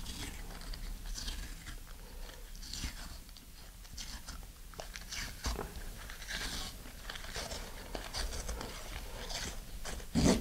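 Thin inner ply of paper being peeled and torn by hand from inside a short cardboard tube, making irregular crinkling, tearing crackles. A louder knock comes near the end.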